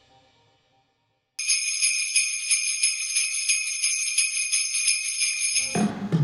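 Sleigh bells shaken in a steady rhythm for about four seconds after a moment of silence, then a band comes in with low brass and drums near the end.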